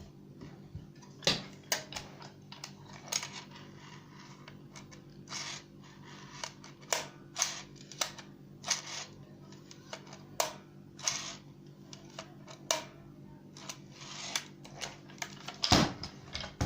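Hand-operated tobacco rolling machine clicking and clacking irregularly as it is worked, with a dozen or so sharp clicks, the loudest near the end, over a steady low hum.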